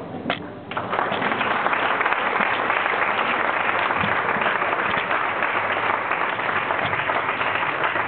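Audience applauding: a few single claps, then full, steady applause from about a second in.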